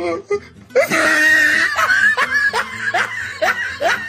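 A run of quick, rising laughing 'ha' sounds over music, starting about a second in.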